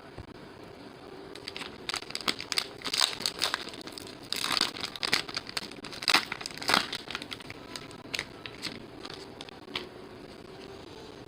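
Baseball card pack wrappers being torn open and crumpled by hand: bursts of crinkling and tearing that come thickest in the middle, then thin out to a few last crackles.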